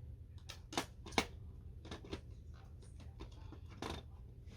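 Scattered clicks and knocks of a Roomba robot vacuum's parts being handled and fitted back together, with two sharper clicks about a second in.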